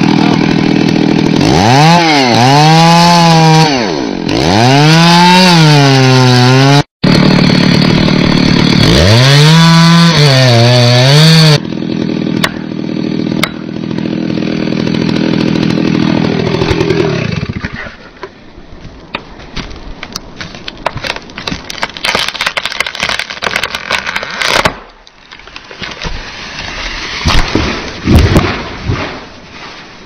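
Long-bar felling chainsaw revving up and down in three surges, then running on more steadily and fading out. In the second half, a long run of sharp cracks and snaps of breaking wood, as the felled tree comes down.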